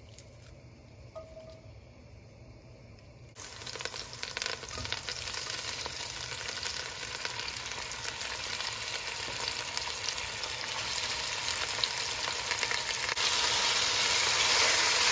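Beef chunks with green onion and ginger sizzling in hot oil in an enamelled pot. The oil is faint at first, then a dense sizzle starts suddenly about three seconds in and steps up louder near the end as the meat is stirred with a wooden spatula.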